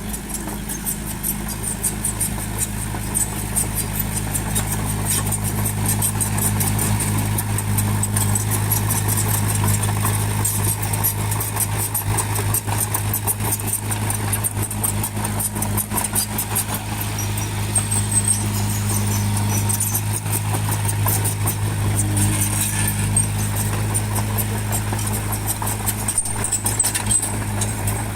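Heavy diesel engine of a bulldozer running steadily, with a fast high rattle over it.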